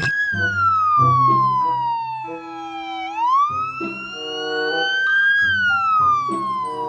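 Electronic police-car siren wailing in slow sweeps: the pitch falls for about three seconds, climbs back over the next two, then starts to fall again. Underneath it runs a stepping tune of short electronic notes.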